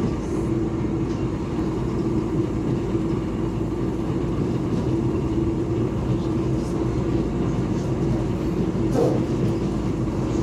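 An electric commuter train running along the line, heard from inside the passenger car: a steady rumble of wheels on rails with a constant hum. There is a brief click about nine seconds in.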